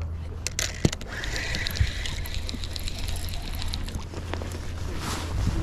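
Scattered clicks and knocks of gear being handled aboard a fishing boat, over a steady low hum.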